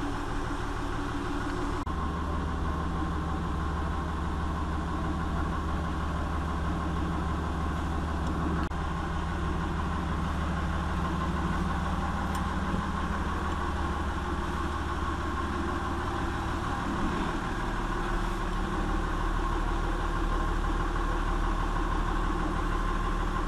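Yacht's inboard engine running steadily, heard from inside the cabin as a low hum; its note shifts slightly about two seconds in.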